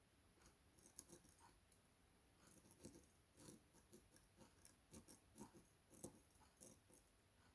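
Lock pick working the pins inside a five-pin Lockwood 301/63 lock cylinder: faint, irregular small clicks and scrapes, coming thicker in the middle of the stretch as pins are lifted and set.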